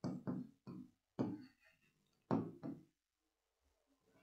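Stylus knocking against the glass of an interactive whiteboard as words are handwritten on it: about six light, irregular knocks over the first three seconds.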